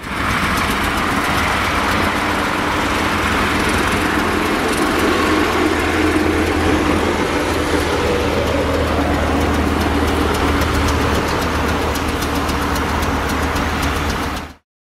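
Six-wheel dump truck's diesel engine running steadily with a low hum as the truck drives, cutting off just before the end.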